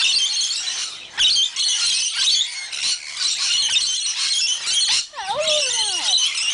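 A flock of lorikeets screeching and chattering, a dense run of short shrill calls without a break. About five seconds in, a lower call slides down in pitch.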